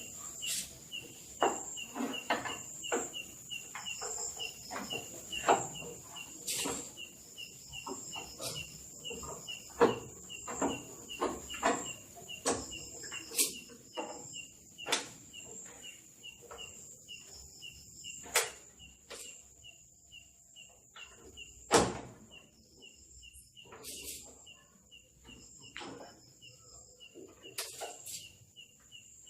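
Scattered clicks and knocks of scooter parts being handled as a windshield is fitted and screwed on; the loudest knock comes about two-thirds of the way through. Behind it, insects chirp steadily, about three chirps a second over a high continuous buzz.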